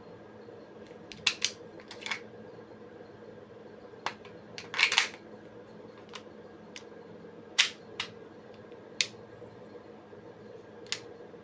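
Sharp mechanical clicks and clacks from a WE F226 gas blowback airsoft pistol being handled, about ten irregularly spaced, with a longer, louder clatter about five seconds in.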